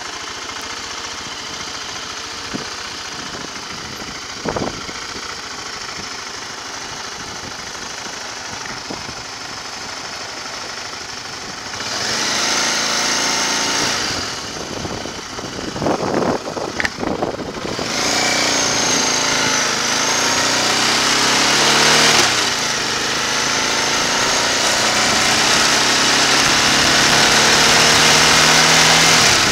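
Motorcycle engine running quietly and steadily, with a brief knock about four seconds in. About twelve seconds in it grows louder as the bike pulls away through a turn, with a few uneven surges. It then accelerates, the engine note rising in pitch, dropping once at a gear change, and rising again, with a rushing noise building as speed picks up.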